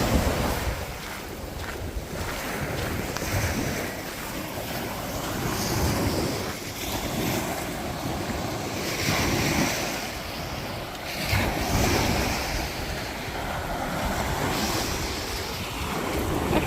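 Sea water rushing and wind buffeting the microphone aboard a sailing boat, swelling and easing every few seconds.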